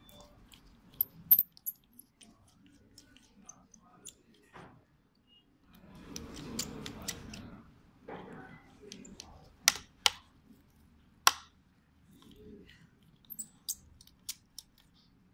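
A precision screwdriver working screws on the plastic frame of a DPVR VR headset: scattered sharp clicks and taps of tool and plastic, with the loudest clicks about a second in and again around ten to eleven seconds, and a stretch of rustling handling in between.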